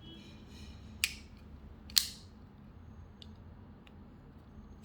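Rick Hinderer XM-18 flipper knife working on its bearing pivot: two sharp metallic snaps about a second apart as the blade is flicked and snaps into place, followed by a few faint ticks and a click near the end.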